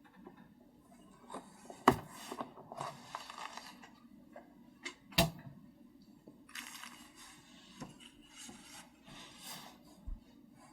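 Irregular keystrokes on an SPM AL66B custom keyboard with Keychron Red linear switches and XVX keycaps. Bursts of quiet typing, with two sharper knocks about two and five seconds in.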